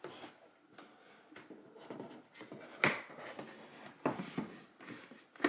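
A stiff cardboard keyboard box being worked apart by hand: faint rubbing and sliding of cardboard, with a few sharp snaps, the loudest about three seconds in.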